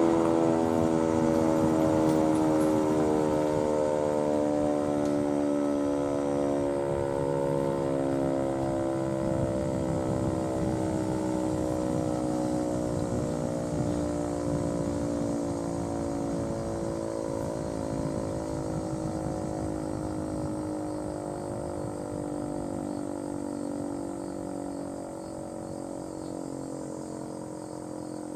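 ACA Screamer S-2 outdoor warning siren winding down at the end of its alert signal: several tones sounding together, slowly sliding down in pitch and fading.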